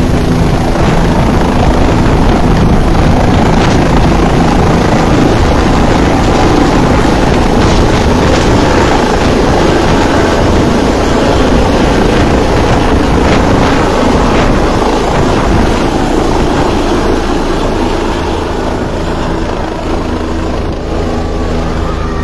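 Helicopter lifting off and flying away, its rotor and turbine very loud. The noise eases a little near the end as it moves off.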